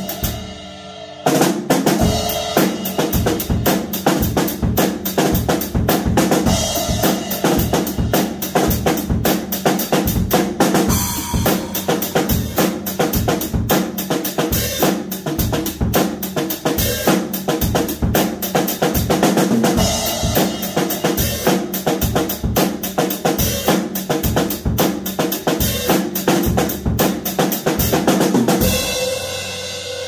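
A 1978 Ludwig Black Diamond Pearl drum kit played steadily, with bass drum, snare and cymbals, after a short lull about a second in. Its old heads are worn out and untuned, which makes the drums sound poor, the bass drum worst of all. Near the end the playing stops and a cymbal ring fades away.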